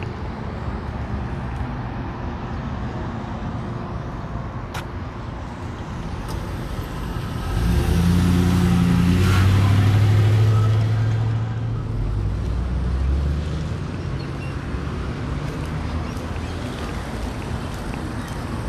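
Street traffic, with a motor vehicle passing close by: its low engine sound and tyre hiss swell up about eight seconds in and fade away by about twelve seconds.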